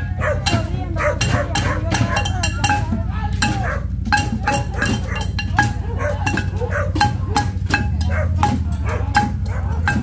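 Improvised tin band of metal pots, pans and lids being beaten in a fast, uneven marching clatter, each strike ringing briefly.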